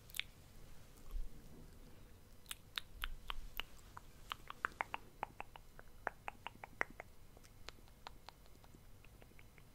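Close-miked ASMR mouth sounds: a run of short mouth clicks and lip smacks starting about two and a half seconds in and going on at several a second.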